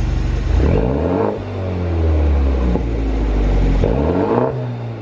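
Engine of a 2018 BMW G30 530i with a pop-and-crackle tune, revved twice from idle: each blip climbs quickly and then falls back to idle, with a few faint pops as the revs drop. It is a 2.0-litre turbocharged four-cylinder.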